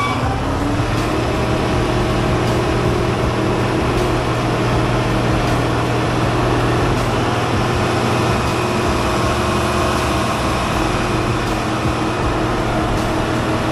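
Truck engine speeding up at the start, then held at a steady raised speed to run the truck's hydraulics while the control-valve levers are worked.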